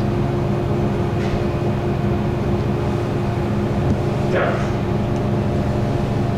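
Steady low machine hum of radiology-room equipment, made of several steady tones. A short sound sliding down in pitch comes about four seconds in.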